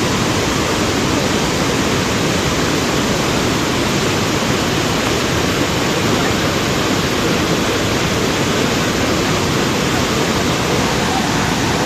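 Steady, loud rush of the swollen Ghaggar River in flood, fast-flowing floodwater after torrential rain.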